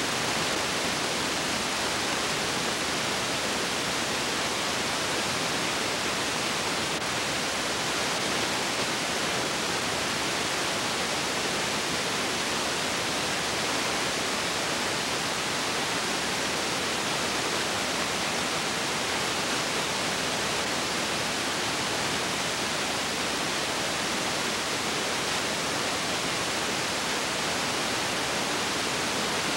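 Steady, even hiss with nothing else heard: the noise floor of a silent home-movie transfer.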